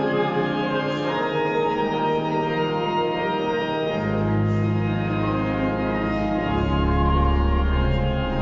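Cathedral pipe organ playing slow, sustained chords, with deep bass pedal notes coming in about halfway through and a lower one joining near the end.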